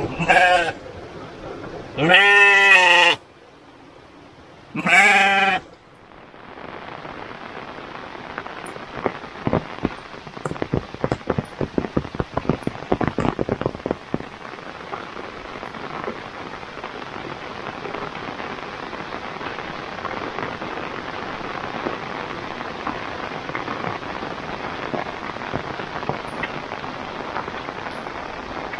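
A sheep bleating three times in quick succession, the middle bleat the longest and loudest with a wavering pitch. Heavy rain then falls steadily, with a spell of loud, close drops hitting a surface for several seconds.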